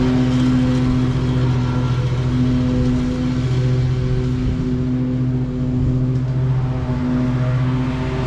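Commercial lawn mower running steadily under load while cutting grass, its engine and blades making a continuous hum.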